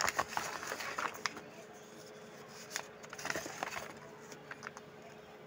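Packaging being handled: scattered light clicks and brief rustles, over a faint steady hum.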